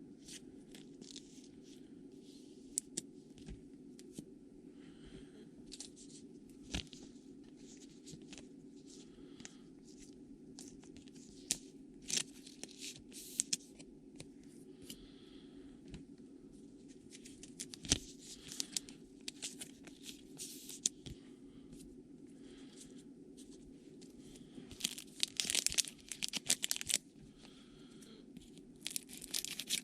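Trading card pack wrappers being torn open and crinkled, with scattered crackles and clicks as cards are handled and several denser bursts of rustling, over a steady low hum.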